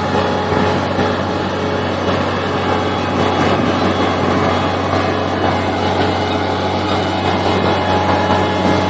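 Heavy construction machinery running steadily, its engine giving a constant low hum under a broad mechanical noise.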